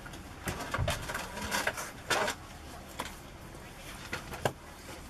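Airliner cabin during boarding: scattered clicks and knocks, one stronger about two seconds in, over faint voices.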